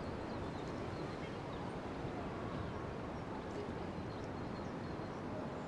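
Steady outdoor background noise with wind blowing on the microphone; no single distinct sound stands out.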